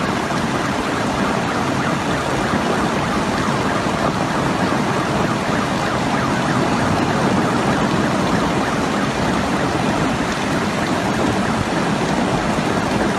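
Steady, loud rushing noise of heavy rain and floodwater, with no distinct sounds standing out.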